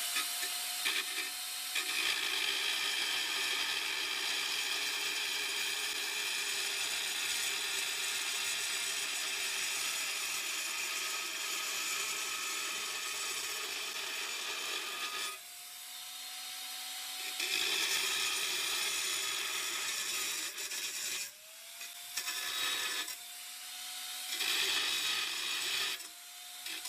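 Dremel Saw-Max with a tile blade cutting a curved notch in a floor tile: a steady motor whine under a gritty grinding. The grinding stops for about two seconds past the middle while the motor keeps running, then comes and goes in shorter spells near the end.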